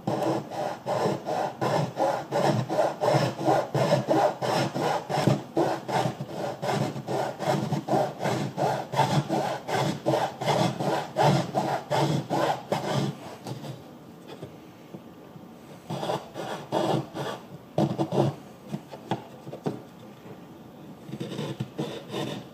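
Small fine-toothed hand saw cutting a thin stained wooden stick in quick, even back-and-forth strokes, several a second. The sawing stops after about thirteen seconds, then picks up again briefly twice.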